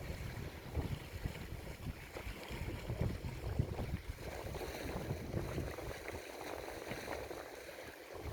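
Wind gusting on the microphone in uneven low rumbles over a steady wash of sea water, easing off near the end.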